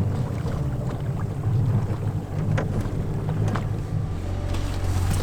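A boat motor running steadily at low speed, a low even hum, with wind on the microphone and a few light knocks.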